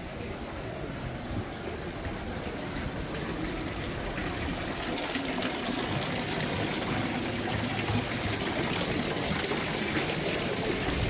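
Water running from the spouts of a stone wall fountain and splashing into its basin, a steady trickling that grows louder over the first several seconds.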